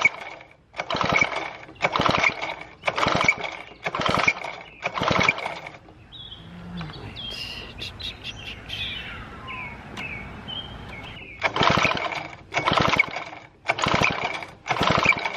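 1950s David Bradley chainsaw engine being turned over on its pull-starter without starting: short pulls of about half a second, roughly one a second. About five pulls, then a pause of about five seconds in which birds chirp, then four more. The cranking drives the magneto so its voltage can be read.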